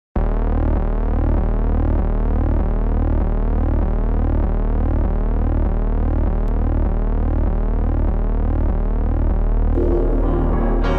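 Electronic intro music: a deep bass drone that pulses steadily under a stream of rapidly repeating rising synth sweeps. Near the end, fuller music with piano begins to come in.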